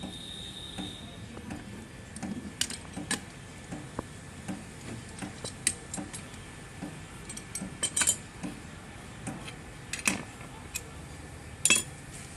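Irregular clicks and knocks, a few with a brief ringing, from hand tools being handled while working a stuck PVC pipe joint off its fitting.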